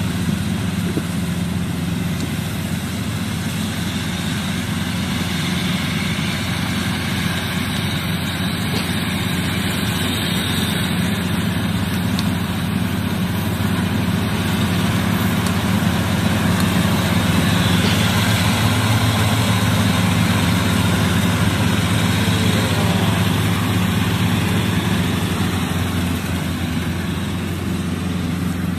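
Gatra rice combine harvester running steadily as it cuts and threshes rice: a constant engine drone with an even mechanical whir, a little louder past the middle.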